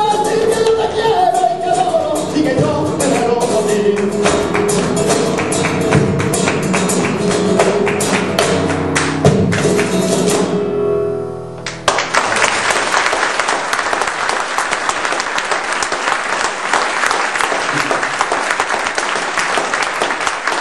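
Flamenco alegrías: a singer with guitar over sharp rhythmic percussive strikes, ending on a held final note that fades about eleven seconds in. Then an audience applauding.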